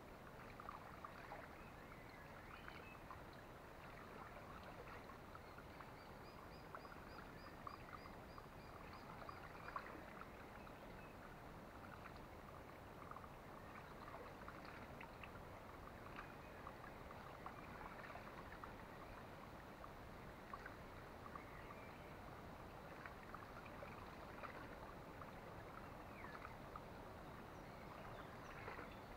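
Faint riverbank ambience: a soft steady water noise with scattered small crackles and ticks, and distant birdsong, including a short high trill of repeated notes about six seconds in.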